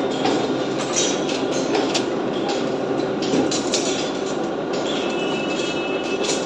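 Steel-rod cutting machine running with a steady mechanical rumble and irregular sharp metallic clanks as TMT rods are worked.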